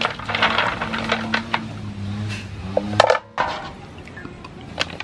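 Clam shells clinking and clattering against one another and the aluminium basin as they are scrubbed by hand in water, with dense clicking. A louder clatter comes about three seconds in, then only scattered, quieter clicks.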